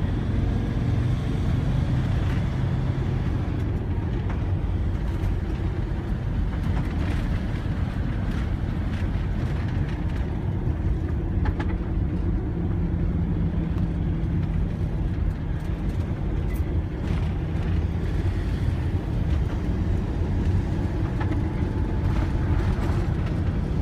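Steady low rumble of engine and tyre noise inside a moving vehicle's cab, with a faint engine hum that shifts in pitch now and then and a few faint rattles.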